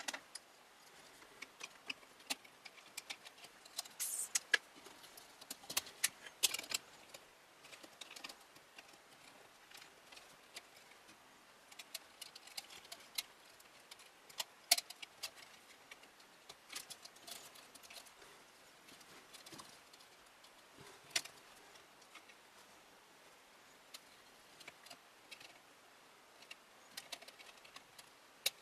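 Irregular small clicks, taps and rattles of hands working fan cables and plugs inside a PC case, loudest around the first quarter and with a few sharper clicks later.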